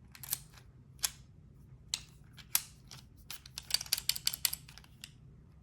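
Sharp metallic clicks and clinks from a dimple lock and lock-picking tools being handled, a few spaced out at first, then a quick flurry in the second half.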